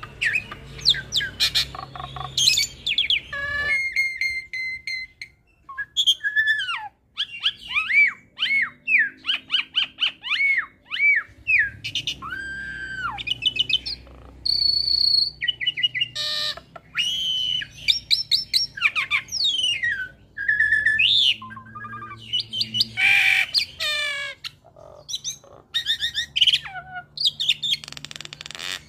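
Hybrid jalak (Asian pied starling × Nias hill myna) singing a long, varied song: quick runs of whistled notes sliding up and down, mixed with clicks and chatter. A few harsh, rasping calls come through, around the middle and again a little later.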